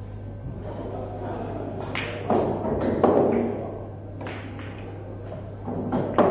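A few sharp knocks, about two seconds in, again a second later, and once more near the end, each with a short ring-out, over a steady low hum and faint room murmur.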